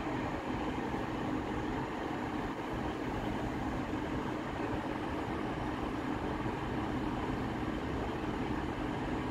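Class 150 Sprinter diesel multiple unit's underfloor diesel engines running steadily at low revs, a constant low engine note with no revving.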